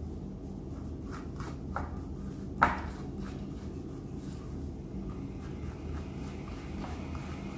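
A metal spoon scraping and tapping lightly as it spreads za'atar mixed with olive oil over raw flatbread dough on an aluminium tray, with one sharper clink about two and a half seconds in. A steady low hum runs underneath.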